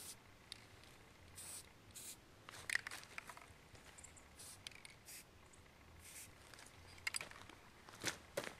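Aerosol spray-paint can let off in short hissing spurts onto a deer skull, a few separate bursts with small clicks and rustles between them.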